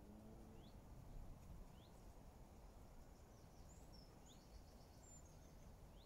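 Faint outdoor background noise with distant small birds calling: a few short, thin rising chirps spread through, and a brief high twittering phrase around the middle.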